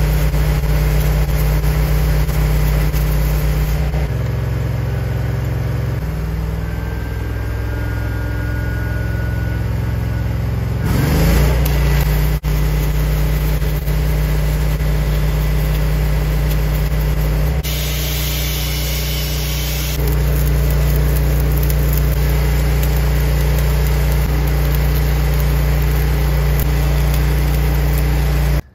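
Miller Trailblazer engine-driven welder's engine running steadily, its note stepping up and down several times, with a short rev about eleven seconds in. Over it is the hiss and crackle of a 7018 stick electrode arc laying a fill pass around a bushing.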